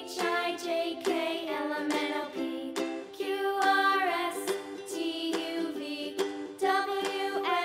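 Children's background music: a bright, plucked-string tune in a steady rhythm.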